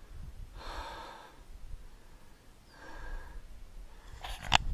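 A hiker breathing hard after a steep climb: two long breaths about two seconds apart over a low rumble, with a brief sharp click near the end.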